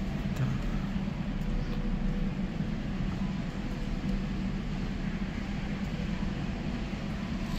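Steady low hum and hiss inside a parked car's cabin, like the ventilation blower fan running, with no distinct events.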